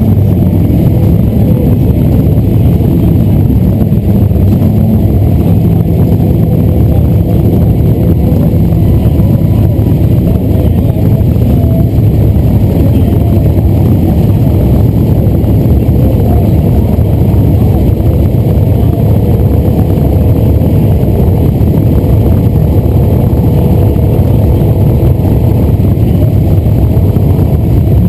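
Cruiser motorcycle engines idling and creeping along in slow, stop-and-go traffic, the nearest bike, the one carrying the camera, the loudest: a loud, steady, low pulsing engine sound.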